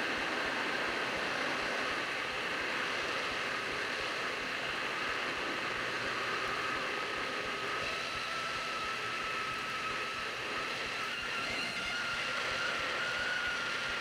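Hot air rework station blowing through a 5 mm nozzle with its airflow turned down: a steady airy hiss with a faint high whine, heating the solder of a small LCD connector so it can be lifted off the board.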